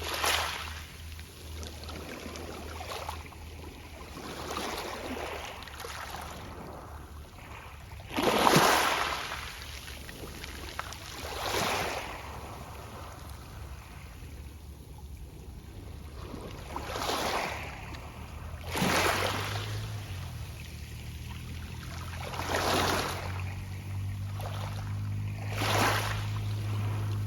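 Small sea waves breaking on a pebble beach, each wash followed by the soft rustling of pebbles, about seven waves coming a few seconds apart with the loudest about eight seconds in. A low steady hum runs underneath and grows stronger in the last third.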